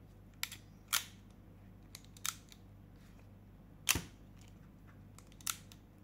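Sharp, irregular clicks from the Parkside ferrule crimping pliers' mechanism as the tool is worked by hand, about five in all, the loudest about four seconds in.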